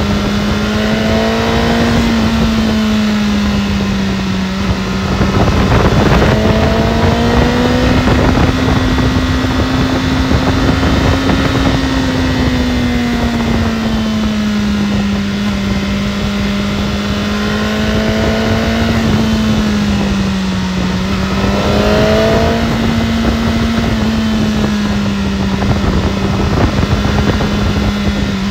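BMW S1000RR inline-four engine running at a steady, near-constant pitch, as at a held cruising speed, with the pitch drifting gently up and down. Fainter rising tones come and go several times over a constant rushing noise.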